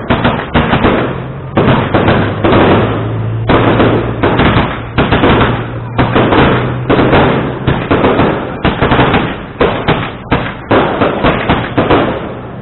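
Fireworks going off in rapid succession: a near-continuous barrage of sharp bangs, several a second, each fading quickly before the next, with only brief gaps.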